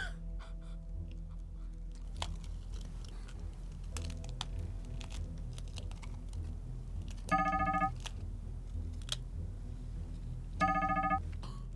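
Background music with a steady low beat, and a short ringtone-like electronic melody that sounds twice, about seven and a half seconds in and again near the end. Faint scattered clicks are heard under it.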